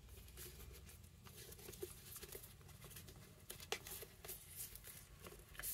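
Faint rustling and soft scattered taps of hands handling a ribbon-tied cardboard gift box as the ribbon is worked loose, with a few slightly louder taps near the fourth second.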